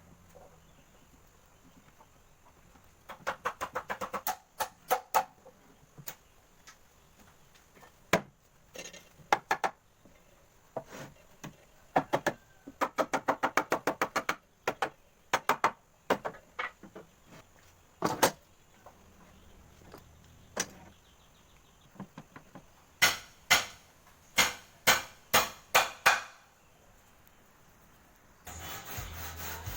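Bursts of sharp knocks and clicks from hand work: quick runs of ticks in places and slower strikes about twice a second. Near the end a steady running noise starts, the motor of a home-built table saw.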